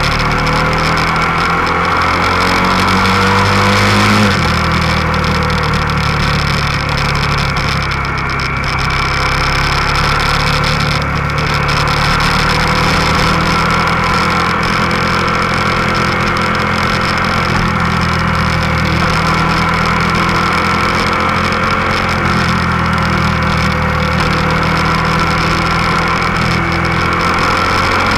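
Motorcycle engine heard from the rider's own bike, revs climbing for the first few seconds, then dropping sharply about four seconds in and running steadily after that, with wind rush over the microphone.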